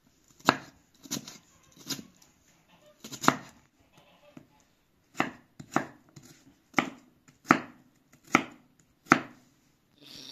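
Kitchen knife chopping raw potato on a wooden log-slice cutting board. About ten sharp, separate knife strikes hit the wood, with a short pause partway through.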